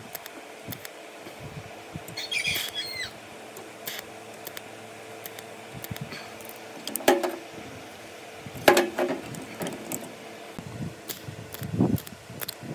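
Metal clinks and knocks from handling a steel cooling fan and TIG welding torch on a steel plate bench, over a steady hum. The two loudest knocks come in the second half, with a brief squeak a couple of seconds in.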